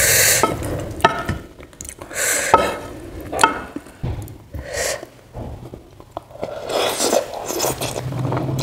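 Wooden spoon scraping and scooping through saucy macaroni in a pan, several short irregular scrapes. Mixed in are wet mouth sounds of eating the pasta.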